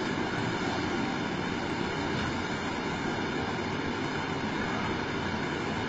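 Steady, even hiss and hum of a hushed snooker arena's room tone, with no ball strikes.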